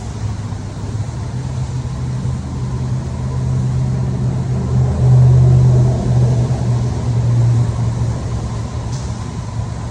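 A steady low engine hum that swells to its loudest around the middle and then eases off.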